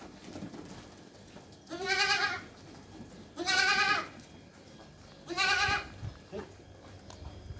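A young goat bleats three times, each call about half a second long with a quavering, wavering pitch. The calls come as it is grabbed from the herd and carried by its legs, bleats of alarm at being handled.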